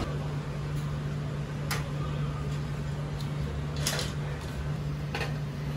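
Quiet interior of a small ramen shop: a steady low electrical hum, with three sharp clinks spread across the scene.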